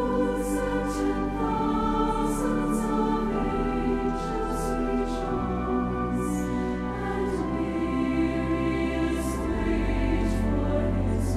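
Large mixed choir singing a hymn in sustained chords, its sung s-sounds clear at the ends of words, with pipe organ accompaniment holding low bass notes that shift about halfway through.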